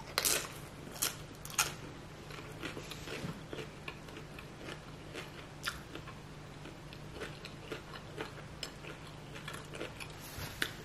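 Crunching bites and chewing of a Dorito nacho chip loaded with beef, cheese and toppings, close to the microphone. The loudest crunches come in the first two seconds, then softer chewing clicks.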